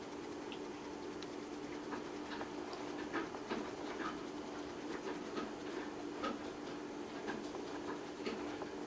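A black cat right up against the microphone making soft, irregular clicking and smacking noises, over a steady low hum.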